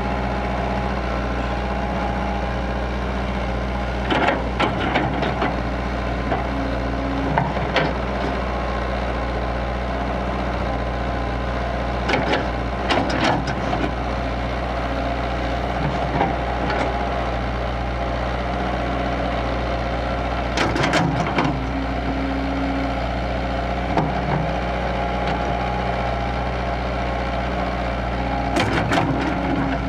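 Kobelco crawler excavator's diesel engine running steadily as it digs soil, with short clusters of clanking and crunching from the bucket and arm every few seconds.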